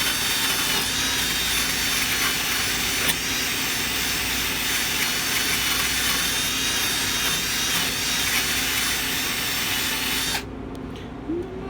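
Drill spinning a wire wheel against the refrigerator door's hinge mounting area, scrubbing the metal clean. It runs steadily, then cuts off suddenly near the end.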